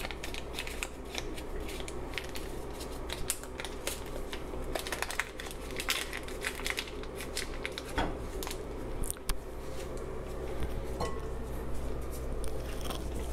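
Paper butter wrapper crinkling and rustling as a stick of butter is unwrapped by hand and set in a frying pan, with many small crackles and clicks and a stronger tap about eight seconds in. A steady low hum runs underneath.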